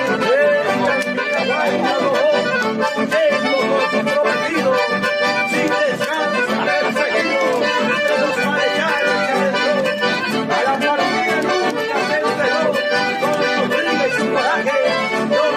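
Accordion playing a traditional Argentine folk tune, a continuous instrumental passage without singing.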